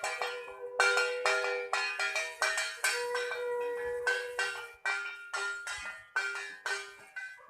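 Puja bell rung by hand in quick runs of ringing strikes, about four a second, with short breaks between runs.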